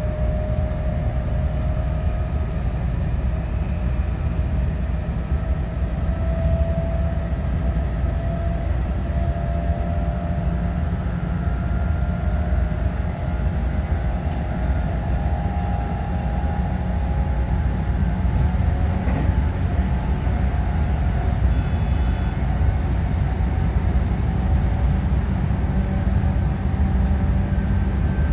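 JR West 221 series electric train running, a steady low rumble of wheels on rail with a faint motor whine that drifts up and down in pitch.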